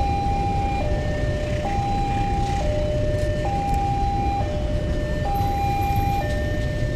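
A two-tone electronic warning alarm alternating between a high and a low note, switching about every second at an even volume, over a steady low rumble.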